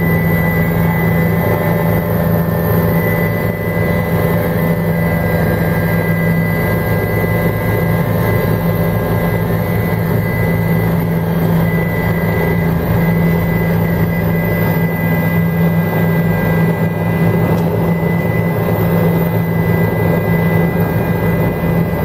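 Helicopter engine and rotors running steadily in flight, heard from inside the cabin: an even, loud drone with a thin high whine over it.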